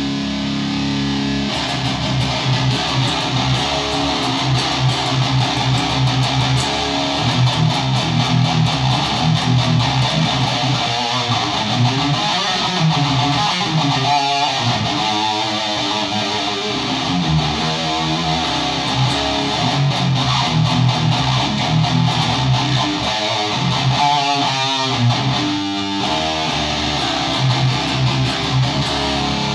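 Distorted electric guitar, a 1991 ESP MII Custom NTB played through a Randall RG3003H 300-watt solid-state head and Mesa Rectifier 4x12 cabinet, riffing on low notes in a fast, rhythmic chug.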